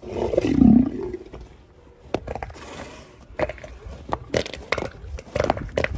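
Elephant seals mating: a low, rough seal call about a second long right at the start, then scattered short knocks and slaps as the two heavy bodies shift against each other.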